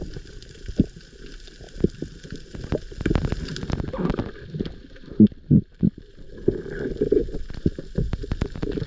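Muffled water sloshing and gurgling with irregular low knocks and thumps, a few louder thumps clustered about halfway through.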